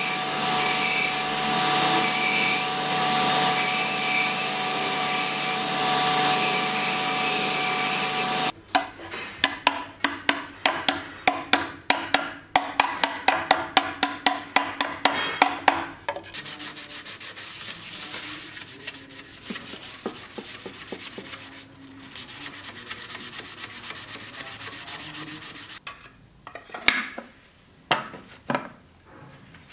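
GoSet G20 Pro belt grinder running with a small steel fitting held to the belt: a steady loud grinding noise with a whine. About eight seconds in it gives way to a quick run of light hammer blows on a steel fitting, about four a second for some seven seconds, then quieter scraping, and near the end a few metallic clinks.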